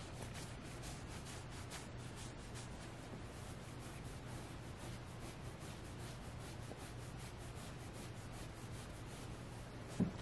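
Fingernails scratching and rubbing the soft fabric of a Squishmallow plush toy in quick, repeated strokes. A short thump about ten seconds in as the toy is moved.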